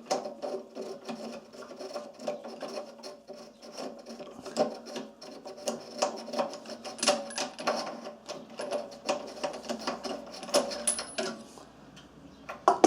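Socket wrench on an extension unscrewing a spark plug from a small Honda GX-series engine: a run of irregular metallic clicks, knocks and scrapes.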